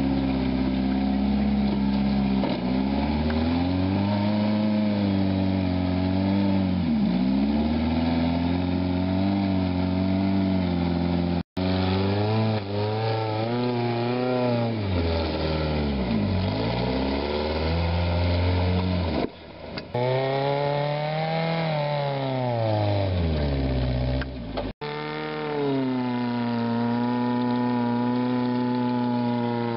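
Rock crawler buggy engine revving up and down over and over under load as it climbs a steep rocky slope, the pitch rising and sagging with each push, broken by two very short gaps.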